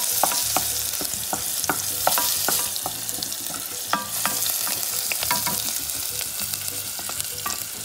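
Minced onions, sweet peppers and garlic sizzling in hot oil in a small nonstick pot while a wooden spoon stirs them, with frequent sharp clicks of the spoon against the pot.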